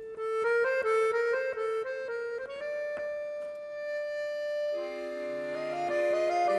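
Chromatic button accordion playing a melody line: a quick run of short notes, then a long held note. About five seconds in, lower chords join underneath and the sound grows fuller.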